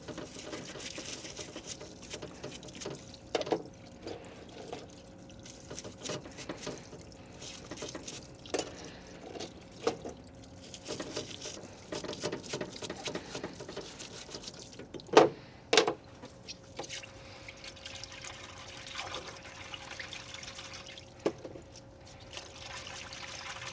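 Shock absorber parts being cleaned by hand in a cleaning liquid: liquid dripping and splashing with scrubbing, and scattered clicks and clinks of small metal parts. Two sharp knocks about fifteen seconds in are the loudest, over a faint steady hum.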